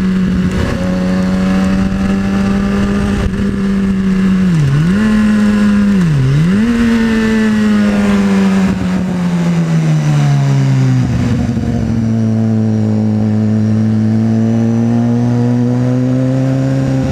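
Sport motorcycle's inline-four engine under way, with wind rushing past. The engine holds a steady note, dips sharply and recovers twice about five and six seconds in, then winds down over a few seconds as the bike slows, and settles into a lower steady note.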